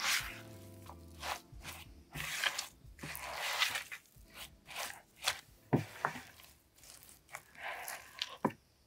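Spatula folding and pressing stiff oatmeal cookie dough, thick with rolled oats, sliced almonds and chocolate, in a glass bowl. The strokes are irregular scraping and squishing, with a few sharp scrapes against the bowl.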